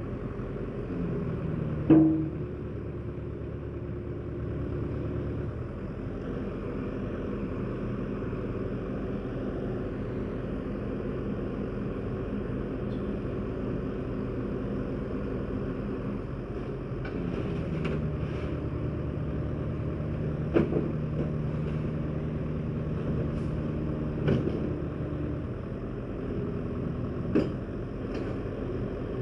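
A heavy engine running steadily, with four sharp metal clanks, the loudest about two seconds in and the rest in the second half.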